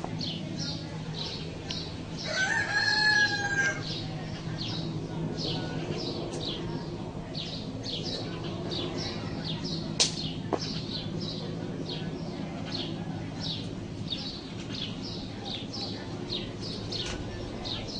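A rooster crows once, about two seconds in, over a steady low drone of a distant hovering helicopter and high chirps repeating about two or three times a second. A single sharp click comes about ten seconds in.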